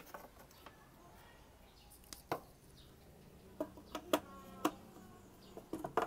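A scatter of short, sharp clicks and light taps, most of them close together in the second half, over a faint low hum that sets in about three and a half seconds in.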